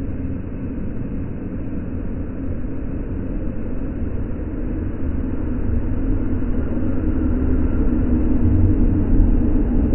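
Freight train hauled by two DB class 152 electric locomotives approaching and passing close by: a deep, steady rumble that grows gradually louder.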